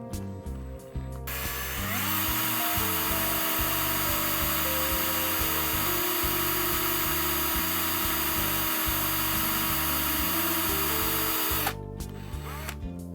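Handheld electric drill freehand drilling into a brass tubular lock to bore out the plug's retaining pin. It spins up about two seconds in, runs steadily for about ten seconds, and stops suddenly. Background music with a bass line plays underneath.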